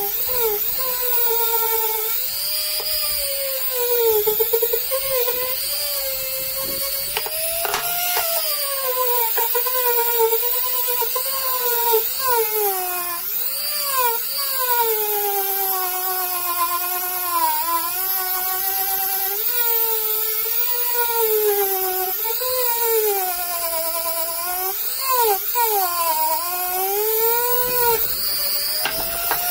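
Handheld rotary tool running with a small wire wheel brush scrubbing an old wooden hammer handle to clean it; its high motor whine keeps wavering up and down in pitch, over a scratchy hiss from the brush.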